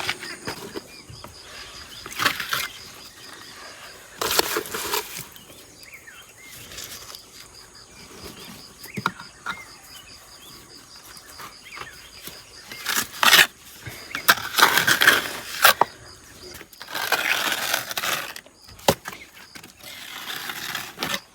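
Bricklaying work: a steel trowel scraping and spreading cement mortar in short, irregular strokes a few seconds apart.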